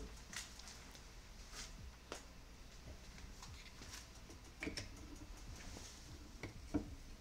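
Faint, scattered clicks and light knocks of kitchen items being handled, a few strokes spread through, the loudest a knock near the end.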